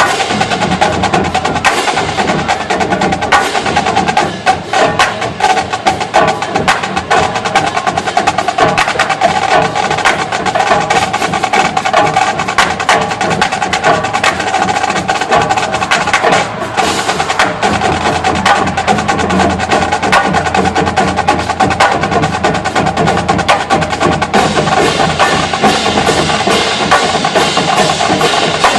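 Marching band percussion section playing a fast, dense percussion feature, with rapid drum strikes throughout.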